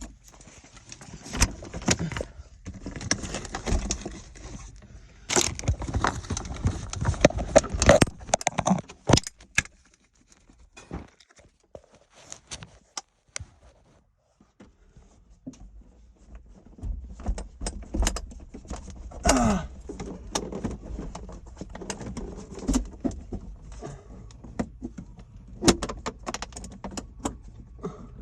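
Irregular clattering, knocking and rustling of loose objects being handled and shifted about while someone rummages through belongings, with a quieter lull partway through.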